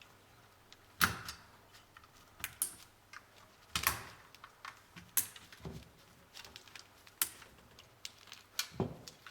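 Irregular clicks, taps and light knocks of hands handling computer parts and cables, with the sharpest knock about a second in.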